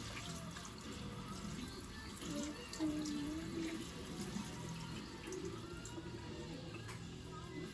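Kitchen tap running steadily into a metal sieve held in the sink, the water splashing through the mesh.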